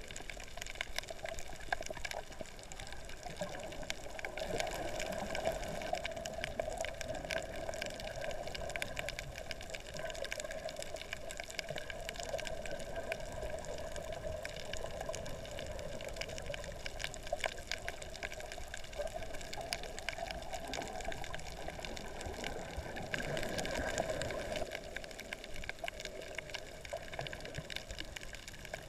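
Underwater water noise picked up by a submerged camera: a steady rushing wash with many scattered clicks and crackles throughout, swelling slightly near the end.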